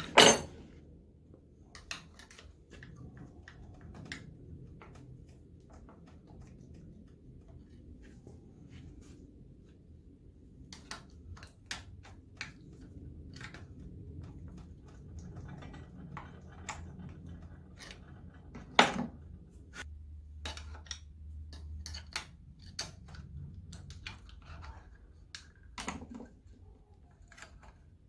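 Metal clinks and taps of wrenches and engine parts being handled at the bench, scattered and irregular, with a sharp metal clank at the very start and two louder knocks later on.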